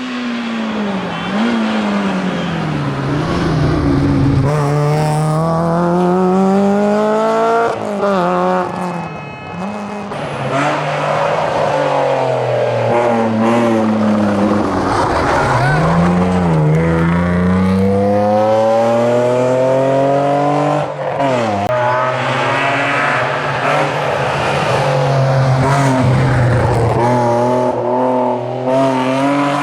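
Rally car engine driven flat out, its pitch climbing hard through each gear and dropping sharply at each shift, several times over.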